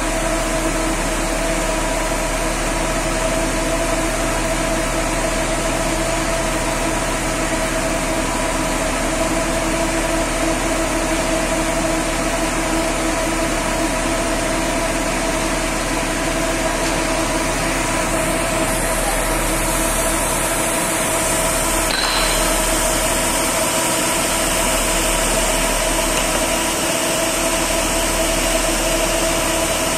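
Automatic drive-through bus wash (FIRATLINE Compact 5FRC) running: a steady mechanical hum and whir with several constant tones over a noisy rush. A higher hiss comes in about 19 s in, and there is a single click about 22 s in.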